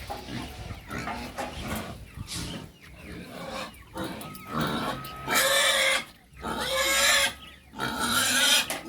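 An animal squealing in harsh, loud bursts, four of them in the second half, over quieter mixed sounds.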